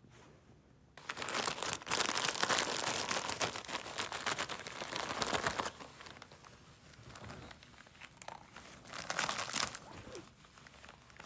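Gift-wrapping paper crinkling and tearing as a dachshund roots into a wrapped present with its nose. It starts about a second in, is loudest for the next few seconds, then eases off, with another burst of crinkling near the end.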